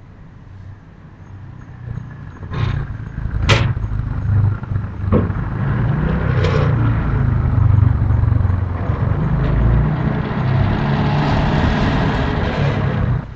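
A loud low rumble that builds up about two seconds in and cuts off suddenly at the end, with a few sharp knocks or clicks in its first half.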